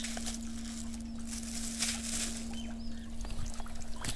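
A steady low hum with scattered rustles and clicks, and a few faint high bird chirps near the end.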